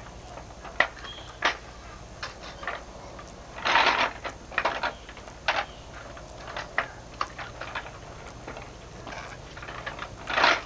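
Toy excavator worked by hand in gravel: a run of clicks and scrapes as its bucket digs, with two louder rattling scrapes of gravel, a few seconds in and near the end.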